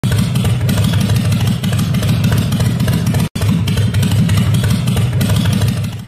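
Harley-Davidson Fat Bob V-twin running steadily through a KessTech ESM3 exhaust, a loud, deep, fast-pulsing exhaust note. It cuts out for a moment a little past halfway through, then resumes.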